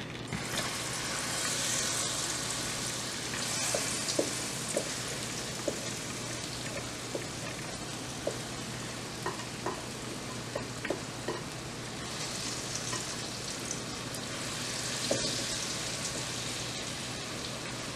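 Cornbread batter frying in hot oil in a skillet: a steady sizzling hiss that swells a little twice as more batter goes in, with scattered light clicks.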